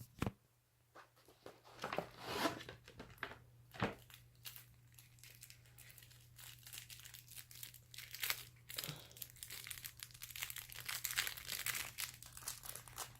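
Plastic wrapping on a trading-card starter deck being crinkled and torn off by hand: irregular crackles and sharp pops, getting busier in the second half.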